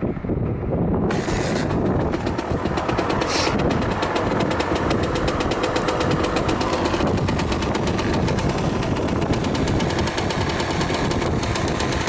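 Kawasaki KSR80's 80 cc two-stroke single-cylinder engine running with a rapid, steady exhaust beat and a couple of brief louder surges, a start-up check in which the engine revs up well and makes no abnormal noise.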